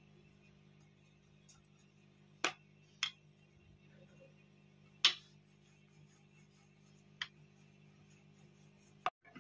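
Five sharp clicks at irregular intervals, the loudest about five seconds in, over a faint steady low hum.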